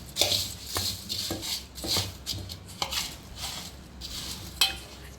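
Puffed rice and carrot being stirred in a pan with a spoon: repeated scraping, rustling strokes about twice a second, with light clicks of the spoon against the pan.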